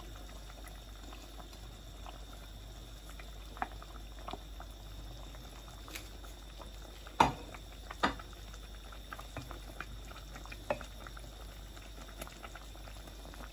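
Mackerel and cauliflower curry simmering in a stainless steel pot, bubbling with small scattered pops. Two sharper clicks come about seven and eight seconds in.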